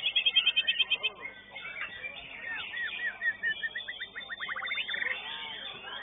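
White-rumped shama (murai batu) singing: a fast trill that stops about a second in, then from about halfway a run of notes that speeds up into a rapid trill.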